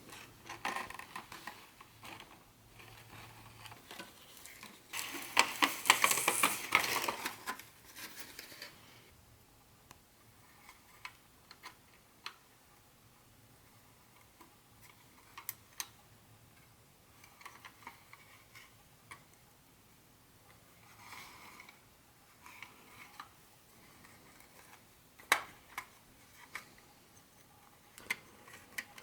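Hands unboxing a vintage HO-scale model train set and handling its packaging: a few seconds of dense rustling about five seconds in, then scattered light clicks and taps.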